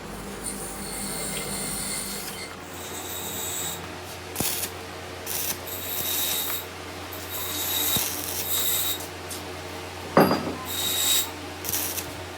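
Repeated rasping, scraping strokes of hand work on metal, irregular in pace, with a few light clicks and one sharp knock about ten seconds in.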